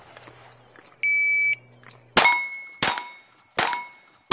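Shot timer's start beep, a steady half-second tone about a second in, then a rimfire pistol firing about every two-thirds of a second: three shots, with a fourth at the very end. Each shot is followed by the ring of a hit steel target plate.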